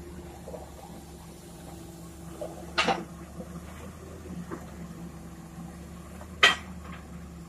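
Heavy diesel engine running steadily, with two sharp knocks about three and a half seconds apart.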